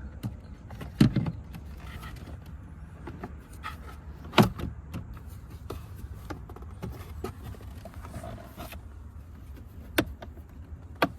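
Hard plastic knocks and clicks as a 2021 Subaru Forester's glove box is fitted back into the dash and snapped into place. There are a few sharp knocks, the loudest about four seconds in and two more near the end, over a steady low hum.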